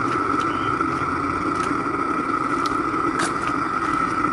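Homemade gas-fired furnace burner running steadily, with a few light clicks.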